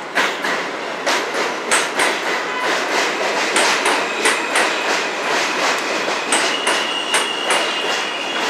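New York subway train entering the station, its wheels clacking over the rail joints in a steady rhythm of a few clacks a second. A steady high squeal from the wheels joins about six seconds in.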